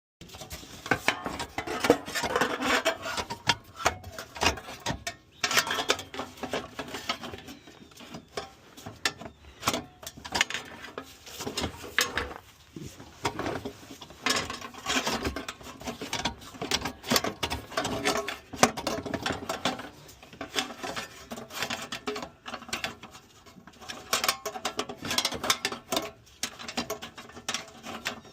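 Hands-on mechanical work on a car's shifter assembly: a dense run of metal clicks, knocks and rattles from hand tools and parts being handled, with a couple of brief pauses.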